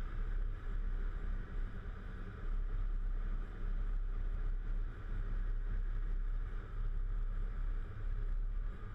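Volvo FH 440 truck on the move, its 13-litre six-cylinder diesel and tyres giving a steady low rumble.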